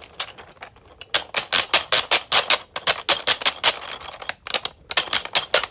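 Clicky thumb wheel on an extra-large 3D-printed plastic 12-in-1 fidget being rolled, giving a rapid series of sharp plastic clicks in two runs, the first starting about a second in and the second near the end. It is the fidget's second loudest wheel.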